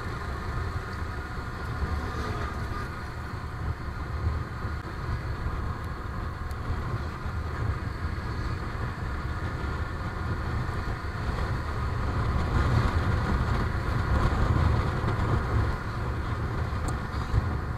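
Yamaha motorcycle engine running while riding at steady road speed, with heavy low rumble from wind and road on the action camera's microphone. It gets slightly louder in the second half.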